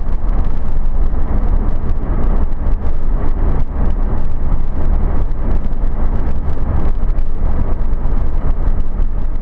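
Vehicle driving along a sealed highway at speed: a loud, steady rumble of road and wind noise.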